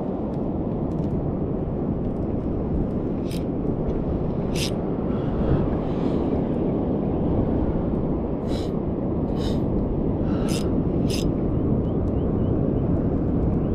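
Steady rush of surf and wind on the microphone at the shoreline, with about six short, sharp clicks scattered through the middle and later part.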